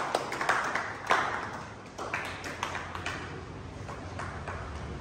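Scattered hand-clapping from a small group, thinning out and dying away over the first three seconds, leaving low room noise.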